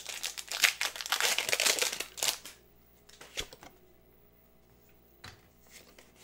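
A Pokémon booster pack's foil wrapper is torn open and crinkled in the hands for about two and a half seconds. After that it goes quiet apart from a couple of faint taps.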